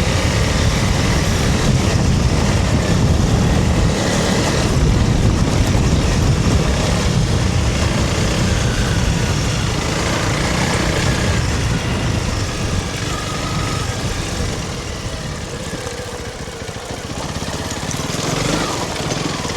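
Honda CRF300 Rally's single-cylinder engine running as the bike is ridden along a rough trail, with a dense low rumble; it eases off for a few seconds about three-quarters of the way through.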